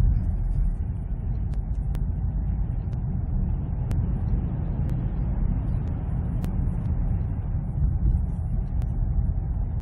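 Steady low road and engine rumble inside the cabin of a moving, heavily soundproofed luxury car, measuring about 57 to 60 dBA.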